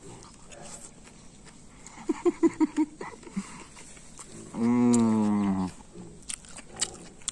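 A man chewing a mouthful of beef and sticky rice and humming in enjoyment with his mouth closed. A few short hums come about two seconds in, then a long, low 'mmm' of about a second that falls slightly in pitch. Small clicks of chewing and the fork come between.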